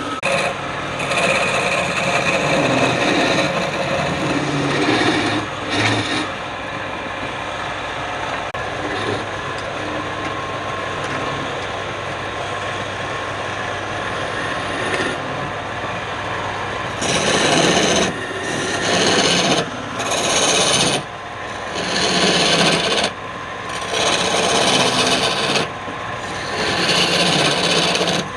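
Wood lathe running while a tool rasps and scrapes against the spinning wood. In the second half this becomes a series of separate strokes, each lasting one to two seconds, with short breaks between them.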